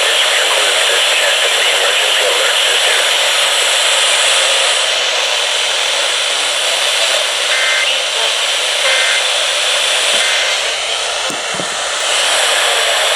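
Loud, steady radio static hiss from a receiver on a weak or empty signal, with faint short tones breaking through a few times in the middle.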